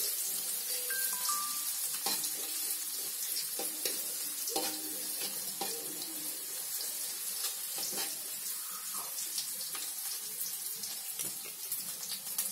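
Sliced garlic and shallots frying in oil in a wok: a steady sizzle with fine crackles, as the aromatics are sautéed until fragrant. A metal spatula stirs against the wok now and then, giving a few sharper clicks.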